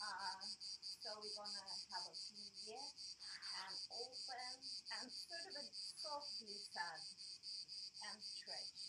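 Insects chirring outdoors: a steady, high-pitched, rapidly pulsing drone throughout. Faint, broken voice-like sounds come and go beneath it.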